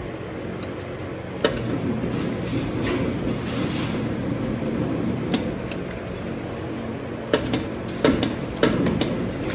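Motorized target carrier on an indoor range lane, running steadily as it sends the paper target out to 30 yards. Several sharp knocks sound over the motor.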